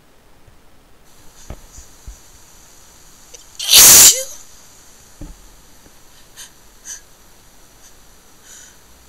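A person's wet sneeze: a single loud burst about four seconds in, with a few faint clicks before and after it.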